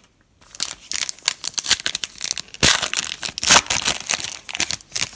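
Plastic wrapper of a 2017 Optic football trading card pack being torn open and crinkled by hand: a dense run of crackling rustles starting about half a second in.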